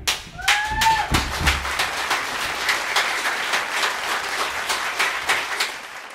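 A small audience applauding, with a short high rising call about half a second in.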